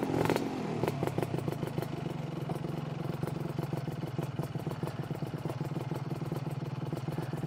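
Lambretta scooter's single-cylinder two-stroke engine idling through a SIP Nordspeed touring exhaust, a steady fast even pulse that settles a little after the first second.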